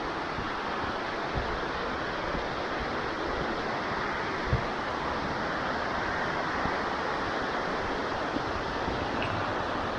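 Steady rushing of a waterfall, with a few low knocks and one sharper thump about halfway through.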